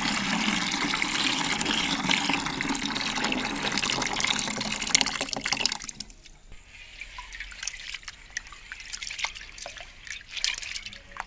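Water poured from a container into a plastic tub of soaked urad dal, a steady splashing pour that stops about six seconds in. After that come quieter small splashes and swishes of water and wet dal as the dal is worked by hand to loosen the husks.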